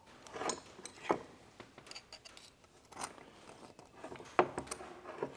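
Irregular light metal clicks, taps and short scrapes of a hand tool working at the piston rings on the piston of a tractor power steering cylinder, prying them off. Sharper clicks come about a second in and again just past four seconds.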